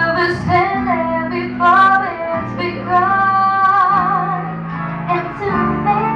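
A woman singing a slow ballad through a microphone and PA over instrumental music, holding long notes with vibrato.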